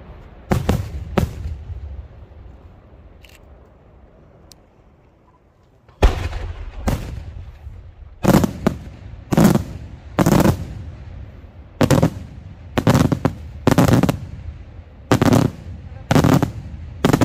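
Daytime aerial firework shells bursting overhead with sharp bangs, each trailing off in an echo. Two bangs come about half a second in, followed by a lull of a few seconds. From about six seconds in, a string of about a dozen bangs follows, roughly a second apart.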